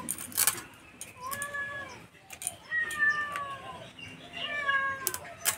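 A cat meowing repeatedly: about three drawn-out meows, each falling in pitch, with a few sharp clicks in between.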